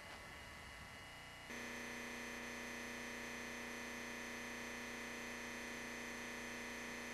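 A steady buzzing hum with many overtones that comes on suddenly about a second and a half in and holds at an unchanging pitch.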